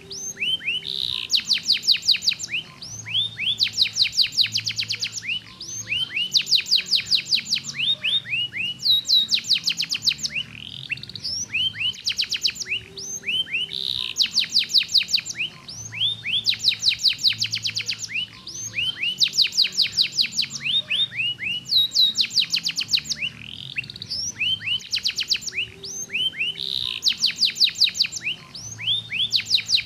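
Yellow domestic canary singing a continuous song of fast, high-pitched trills, one phrase running into the next with only short breaks.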